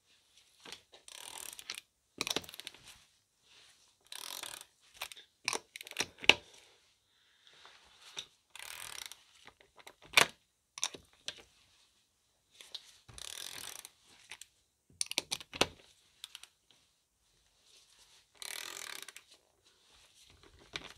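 Hand socket ratchet clicking in short runs, about one second each and roughly every four seconds, as the wheel nuts are loosened. Sharp metallic clicks of the socket on the nuts come in between.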